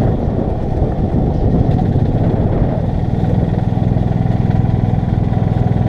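Golf cart driving along a track: a steady low drone from the cart under a rough rumble. The drone eases briefly about a second in, then comes back.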